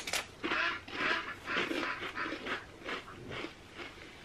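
People chewing crunchy tortilla chips with salsa: a run of crunches, roughly two a second.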